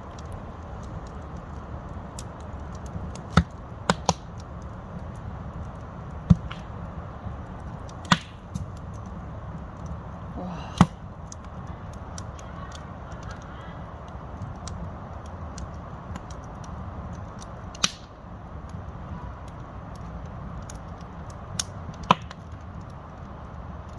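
Wood fire burning in a campfire pit: a steady low rustle of flames with sharp pops and cracks from the burning logs, about ten of them at irregular intervals.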